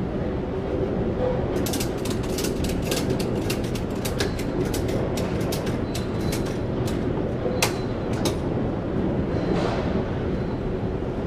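Rapid, irregular sharp metallic clicking from a cargo ratchet strap being worked at the back of a curtainsider trailer. It lasts for several seconds, with one louder click near the end of the run and a short scrape afterwards. A steady low hum runs underneath.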